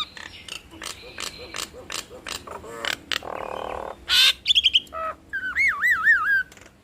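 Nias hill mynas calling: a quick string of sharp clicks and croaking notes, a harsh rasping burst about three seconds in, then short whistles and a long wavering whistle near the end.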